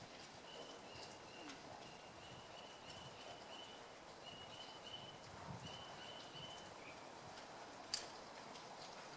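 Faint bird calling: long strings of short notes repeated quickly on one high pitch. A single sharp click about eight seconds in.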